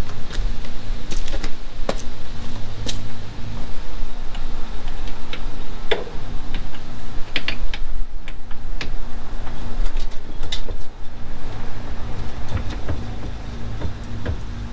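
Scattered metallic clicks and clinks of hand tools and steering-shaft hardware as bolts are worked in the engine bay. Under them runs a steady low mechanical hum.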